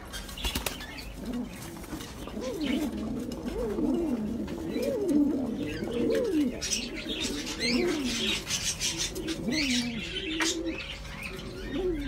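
Domestic pigeons cooing over and over, low warbling calls that rise and fall in pitch, with a few thin high chirps from other small birds partway through.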